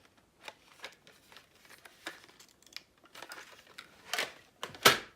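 Small rustles and light clicks of craft supplies being handled in a bag, with two louder rustles near the end.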